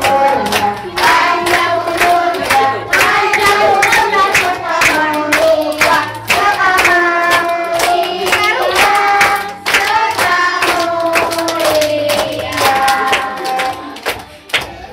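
A woman singing a birthday song into a microphone, joined by a group of voices, with many hands clapping along in a steady beat.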